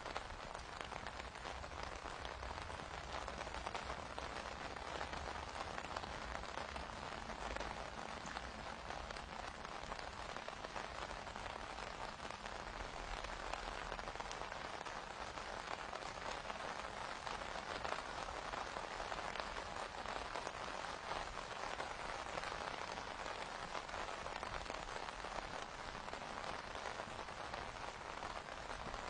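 Steady rain falling, a dense, even patter of many small drops.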